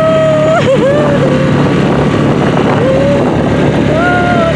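Small outboard motor driving an inflatable dinghy over open water, with a dense rushing sound of water and wind through the middle. A high held tone sounds near the start, and a shorter one comes near the end.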